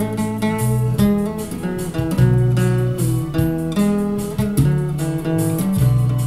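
Nylon-string classical guitar fingerpicked, bass notes under plucked chords and a melody line, in a jazz waltz arrangement.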